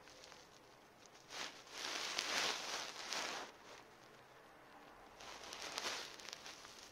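Rustling and brushing close to the microphone as the cat's long fur rubs against the phone, in two stretches: a longer, louder one starting about a second and a half in and a shorter one about five seconds in.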